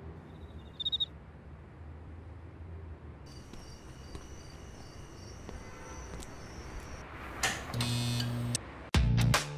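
A quiet ambient intro bed: a low rumble with a brief high chirp about a second in, then thin high-pitched steady tones from about three seconds. Near the end a short swell with a low held tone leads into music with a heavy beat.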